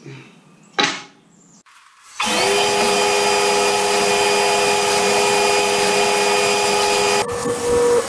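A brief handling noise about a second in, then a table saw switched on: its motor spins up quickly and runs steadily with a steady hum, cutting off abruptly near the end.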